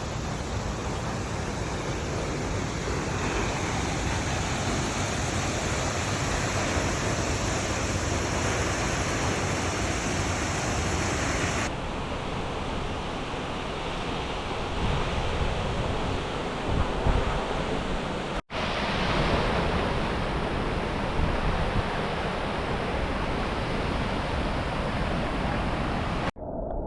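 Salto del León waterfall: water falling and rushing steadily. The sound drops out twice for an instant, about 18 seconds in and again near the end.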